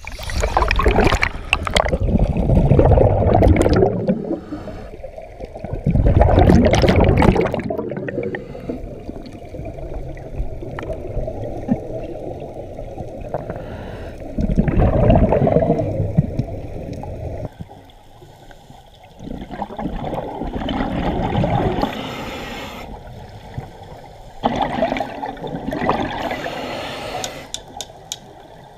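Underwater, a scuba diver's exhaled bubbles gurgling and rushing past the submerged camera in a surge every five to eight seconds, with quieter water noise between.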